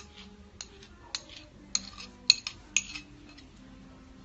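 Kitchen utensils and dishes clinking: about eight short, irregular clinks and taps with a brief high ring, the loudest a little past halfway.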